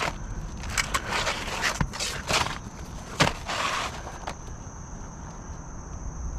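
Irregular crunches, scrapes and clicks of hands-on roofing work on asphalt shingles, with a few sharper strokes in the first half.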